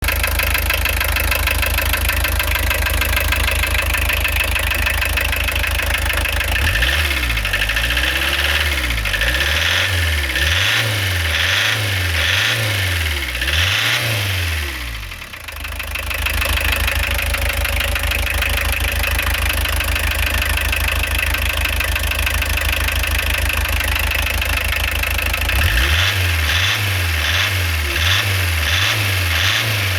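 JX 1.6-litre turbodiesel engine idling with a steady diesel clatter, revved up and down several times. It falls away briefly near the middle, settles back to idle, then is blipped again near the end.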